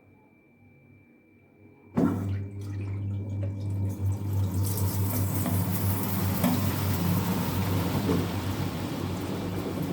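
LG top-load washing machine starting up about two seconds in, after a faint steady high tone: a steady low hum with water rushing in to fill the drum, the rush growing stronger a few seconds later.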